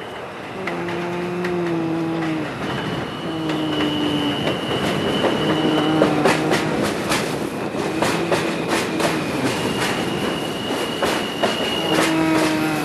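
New York City subway F train running along the track: a low hum that comes and goes every second or so, a thin high wheel squeal, and from about halfway in a quick run of clicks as the wheels cross rail joints.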